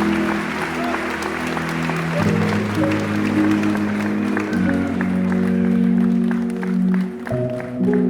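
Music of slow held chords changing every second or two, with clapping and applause over it that dies away over the second half.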